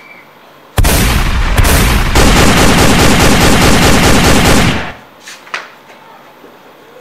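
A long burst of rapid gunfire starts about a second in, lasts about four seconds and stops abruptly. A couple of faint clicks follow.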